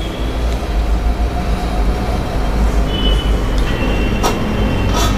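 Steady low rumble from a stainless-steel idli steamer on a gas stove, with two sharp metallic clinks near the end as its hot steel lid is gripped with a cloth and lifted.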